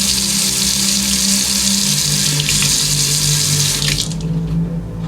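Water running from a tap into a sink, shut off suddenly about four seconds in.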